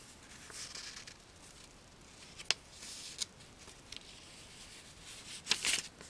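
Paper pages of a thin owner's manual rustling as they are handled, with a couple of sharp ticks partway through and a louder flurry of rustling as the pages are flipped near the end.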